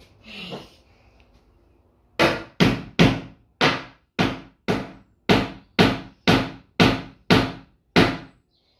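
About a dozen hard bangs in quick succession, roughly two a second, each ringing out briefly, as something is struck over and over.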